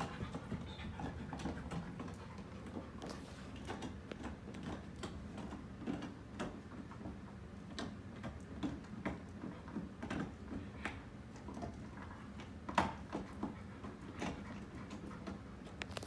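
Ceiling fan running at speed: a steady low hum with a soft rush of air, sprinkled with irregular light clicks and ticks, one louder about three quarters of the way through.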